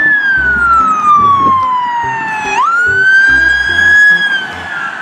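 Police car siren wailing: the pitch falls slowly, sweeps quickly back up about two and a half seconds in, holds, then begins to fall again near the end.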